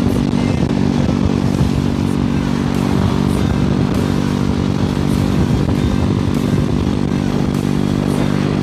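Motorcycle engine running at a steady, even pitch while being ridden.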